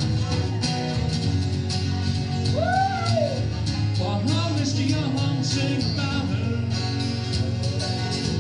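Acoustic band playing classic rock live: acoustic guitars strummed in a steady rhythm over steady low notes, with a melody line gliding up and down in pitch over the top.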